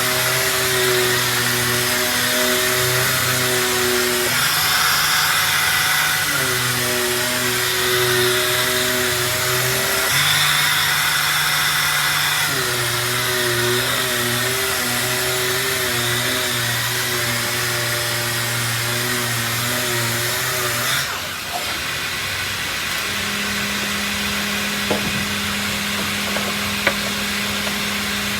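Sanding machinery in a robotic door-sanding cell running: a steady hiss with motor whines that shift pitch in steps every few seconds. About three-quarters of the way through the hiss stops and a lower steady hum carries on, with a couple of sharp clicks near the end.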